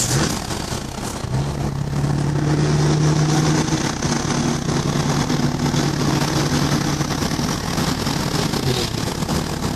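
Scania 142's V8 diesel engine running steadily, heard from inside the cab as the truck drives along, with road and wind noise. The engine note shifts briefly about a second in, then holds steady.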